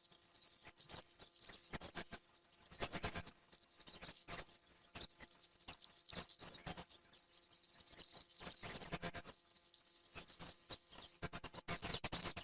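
Mouse squeaking in rapid, very high-pitched chirps, mixed with light scratching and clicky patter from its movements, the clicks thickest near the end.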